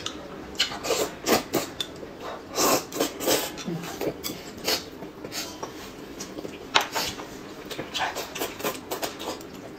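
A person eating noodles close to the microphone: slurping and chewing in a run of short, irregular wet sucks and smacks.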